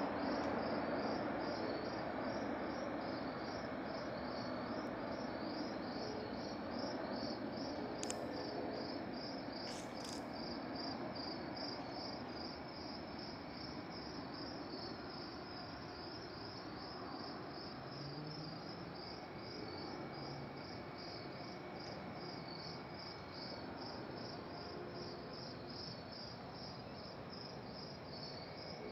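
Crickets chirping in a steady, evenly spaced pulse over a low, even background hiss, with two brief clicks about eight and ten seconds in.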